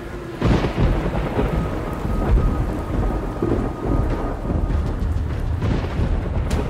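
Heavy metal music with distorted guitars and pounding drums, crashing in suddenly about half a second in and running on loud and dense.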